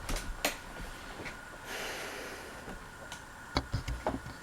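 Ceiling fan running, heard as a faint steady hum, with a few small clicks near the start and end and a soft breath-like hiss about halfway through.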